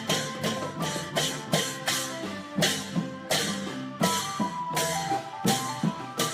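Thai Isan klong yao long-drum troupe music: drums beating a steady rhythm with strikes about two a second, each followed by a long bright ring, over a held melodic line.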